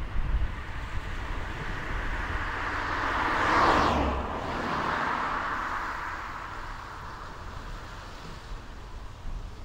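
BMW 320i (F30) saloon driving past: its tyre and engine noise swells as it approaches, is loudest a little under four seconds in as it passes, then fades as it pulls away. Low wind rumble on the microphone near the start.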